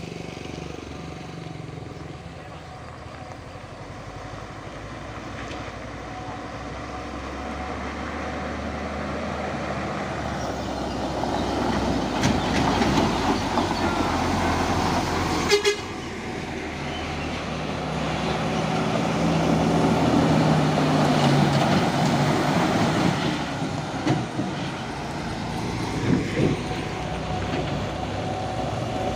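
Heavy diesel truck engine labouring up a steep climb, growing steadily louder. About halfway through there is a brief sharp sound, after which the engine note drops and then builds again.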